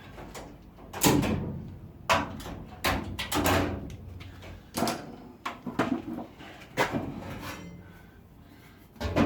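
Irregular knocks and clunks of tools or metal pieces being picked up and put down, about seven in nine seconds.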